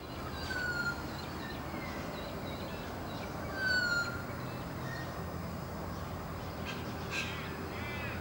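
Birds calling over a steady low background rumble of outdoor ambience: short falling whistles and chirps, the loudest a falling whistle about four seconds in, and a quick run of repeated calls near the end.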